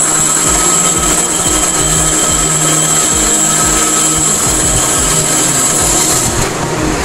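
Small benchtop band saw running, its blade cutting through a small turned wooden piece as it is rotated into the cut. A steady, loud whine; the highest tone fades away near the end.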